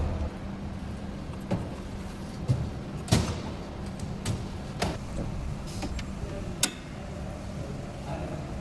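A steady low hum under a series of sharp knocks and clicks, about six in all, with the loudest about three seconds in.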